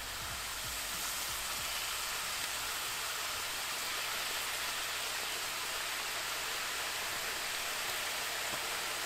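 Corn tortilla pieces frying in hot oil in a wide pan: a dense, steady sizzle that swells slightly in the first second as more pieces go into the oil.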